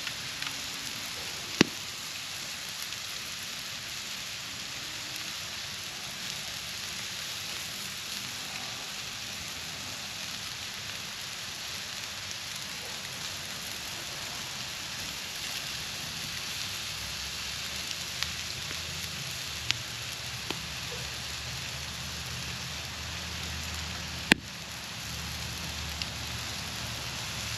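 Wood campfire burning with a steady hiss and crackle, broken by a few sharp pops from the wood, the loudest about a second and a half in and again near the end.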